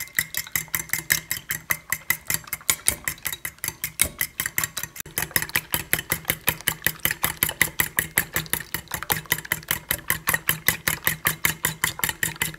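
Metal fork beating raw eggs in an enamelled steel bowl, the tines clicking against the bowl in a fast, even rhythm of about seven strokes a second.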